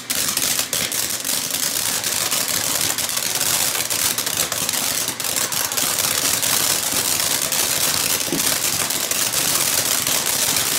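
Ground fireworks fountain spraying sparks: a steady loud hiss full of dense, rapid crackling.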